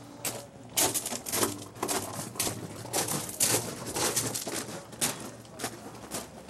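Footsteps crunching on gravel at a walking pace, about two steps a second.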